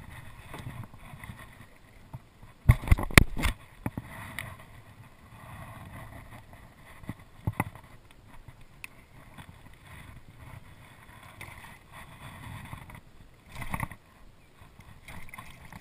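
Water lapping against a kayak while a redfish is played alongside on a fly rod. A quick cluster of loud knocks about three seconds in and a smaller pair around seven and a half seconds sound like gear knocking on the hull. Near the end a short splash comes as a hand goes into the water beside the boat for the fish.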